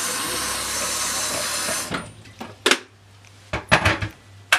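Kitchen tap running into a kettle, shut off about two seconds in, followed by a few sharp knocks and clunks as the kettle is handled and set down.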